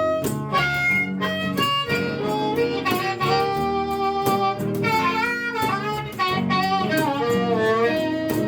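Blues harmonica solo with bent, sliding notes over guitar accompaniment.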